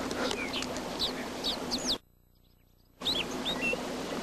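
Wild birds chirping in short, high, quick calls over a steady background hiss, cut off by about a second of near silence midway before the chirps resume.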